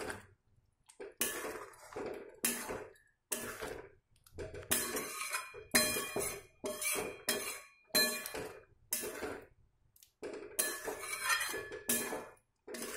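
Steel spoon stirring thick gravy with paneer cubes in a metal kadai, in a string of short irregular strokes: wet scraping along the pan with clinks of spoon on metal.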